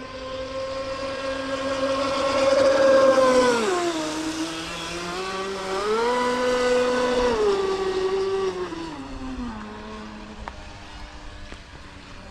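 Electric motor of a large 6S-powered RC speedboat whining as it runs on the water, loudest about 3 s in. Its pitch drops about 4 s in, climbs back about 6 s in, then falls in two steps as the boat slows, over a steady hiss.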